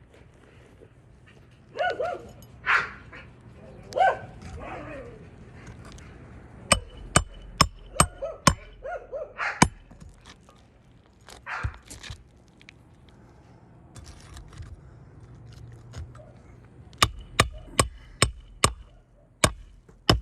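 Hammer blows on a roofing snake, driving roofing nails under an overlying shingle into the roof decking: two runs of about six sharp metallic strikes, a little under half a second apart. A few short barks come in the first few seconds.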